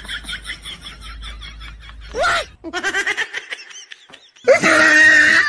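A high-pitched voice in quick, laughing-like pulses, then a short rising and falling vocal glide. Loud music comes in about four and a half seconds in.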